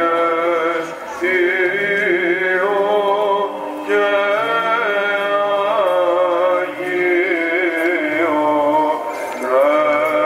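Greek Orthodox church chanting: a male voice sings a slow melody of long, wavering held notes, in phrases with short breaks.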